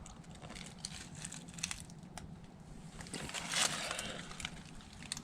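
Faint footsteps crunching through dry leaf litter and twigs, with scattered small snaps and one louder rustle about three and a half seconds in.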